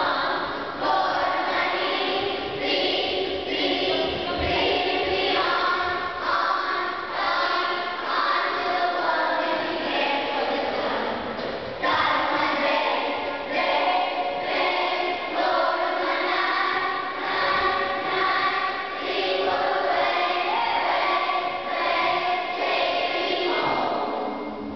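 A group of children singing a song together, in phrases that go on with hardly a break.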